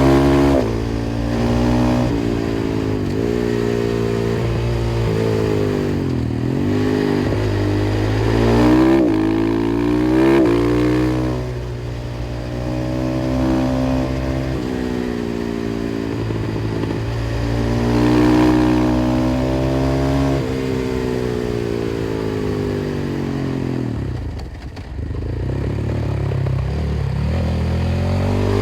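KTM 500 EXC-F single-cylinder four-stroke engine through an FMF exhaust, accelerating hard and shifting, its pitch rising in repeated sweeps and dropping back on each shift and on deceleration.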